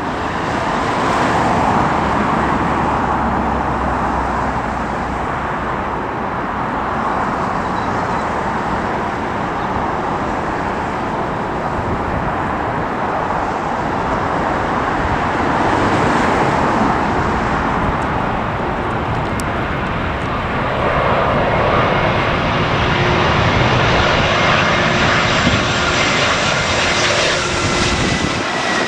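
Jet airliner on landing approach: a steady rushing engine noise, with a whining engine tone coming in about twenty seconds in and falling slightly in pitch near the end. Strong wind rumbles on the microphone.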